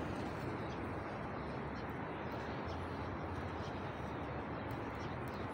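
Steady outdoor background noise, a low hum with a few faint ticks.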